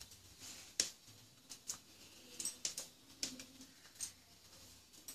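Scattered light clicks and taps of dishes and food being handled: onion slices set down on a serving plate and plates touching, several faint separate clicks over a few seconds.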